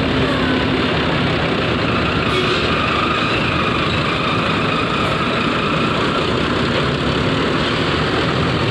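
Hino RK-chassis coach's diesel engine running at low speed as the bus creeps up a steel ferry ramp, a steady heavy din with a faint whine over it.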